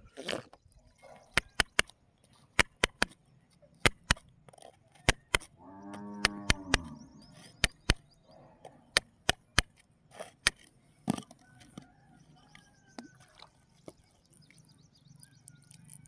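A run of sharp clicks and taps of stones and a digging tool knocking against wet gravel. About six seconds in there is a single drawn-out pitched call, lasting about a second.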